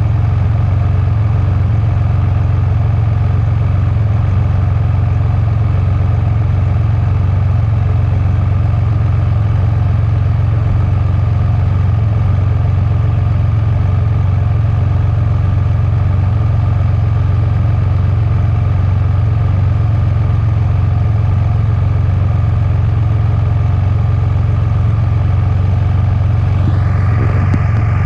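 Steady low drone of an idling engine that does not change in pitch or level. Shortly before the end comes a brief rustle as the camera is handled.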